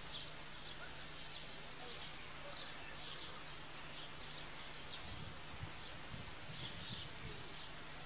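Garden ambience: small birds chirping in short, repeated high calls over a steady background hiss and a faint low hum, with a few soft low rumbles in the second half.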